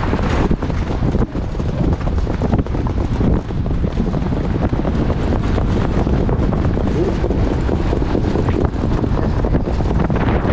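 Wind buffeting a helmet-mounted microphone at racing speed, with the hoofbeats of a standardbred trotter on the dirt track underneath.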